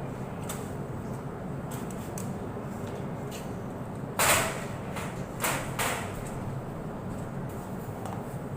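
Vehicle engine running steadily, with a loud hissing burst about four seconds in and two shorter ones a second or so later.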